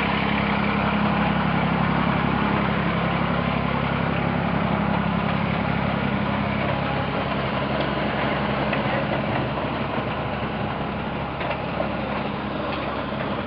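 Farmall tractor engine idling steadily.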